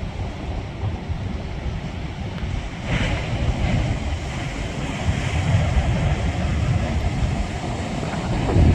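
Heavy ocean surf breaking and washing on the shore, with a low rumbling wash of wind on the microphone. About three seconds in, a louder, hissier surge of breaking water swells up.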